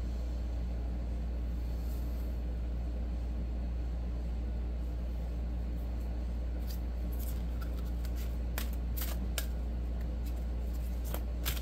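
Tarot cards being shuffled: from about halfway in, a scattered series of sharp card clicks and flicks, over a steady low hum.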